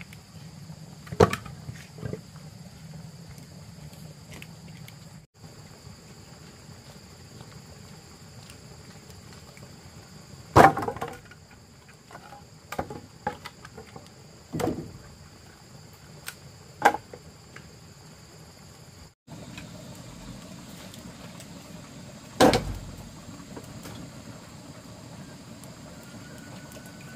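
Wooden logs knocking and clattering as firewood is set down and stacked, about eight separate knocks spread through, the loudest about ten seconds in. A steady insect drone runs behind.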